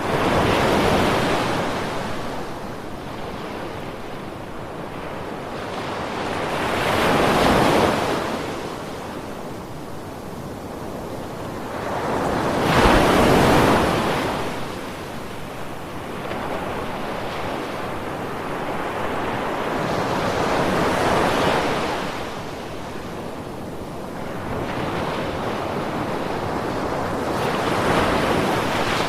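Ocean waves breaking and washing up, one after another: five rushing swells about six to seven seconds apart, the loudest about halfway through, with a steady hiss of surf between them.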